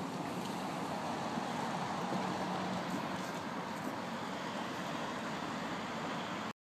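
Steady vehicle and street-traffic noise with a constant low hum, cutting off abruptly near the end.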